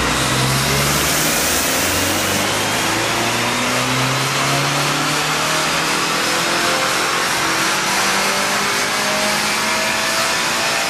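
A 10th-generation Honda Accord's turbocharged four-cylinder engine at full throttle under load, its pitch climbing steadily through the revs as on a dyno pull, with a high turbo whine rising along with it.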